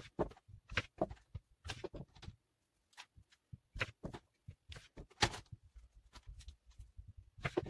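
Kitchen knife slicing button mushrooms in half on a plastic cutting board: irregular soft taps and clicks of the blade meeting the board, mixed with the handling of the mushrooms and a plastic tray.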